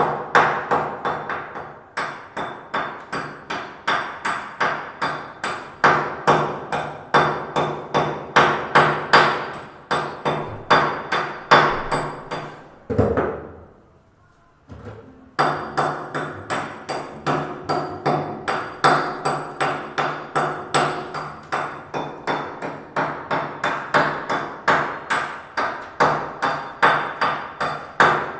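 Steady hammer blows, about three a second, each with a short metallic ring, stopping for about two seconds midway and then going on; the work is on the wall opening for an exhaust fan.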